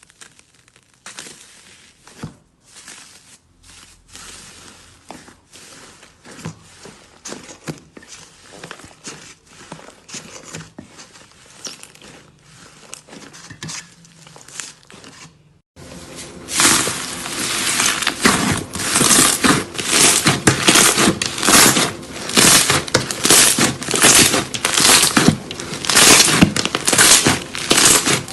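Slime being squeezed and pressed by hand, making sticky crackling and clicking sounds. A little past halfway it changes abruptly to a louder run of rapid crackles.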